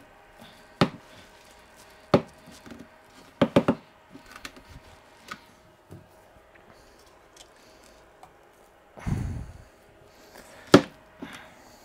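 A metal screwdriver knocking and scraping against the cutters of a paper shredder as sticky goo is pried out of them: separate sharp knocks, a quick run of three about three and a half seconds in, a longer rough scrape about nine seconds in, and a loud knock near the end.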